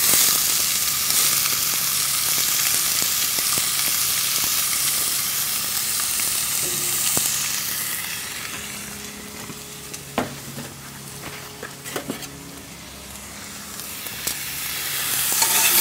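Diced onion sizzling in hot bacon fat in a stainless steel pan, the sizzle loud at first, easing off after about eight seconds and swelling again near the end. A couple of sharp ticks come in the quieter stretch.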